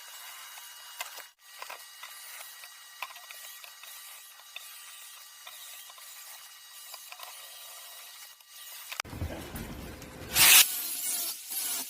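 Scattered light metallic clicks and handling noises, then near the end a louder clatter with one sharp, loud burst of noise.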